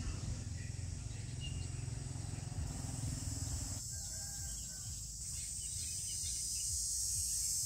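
Outdoor ambience: a steady low rumble under a high hiss that grows louder about three and again about five seconds in, with faint bird calls.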